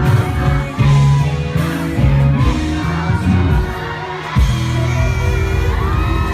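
Pop music: a band playing with a singer's voice over it, with some whoops or cheering mixed in.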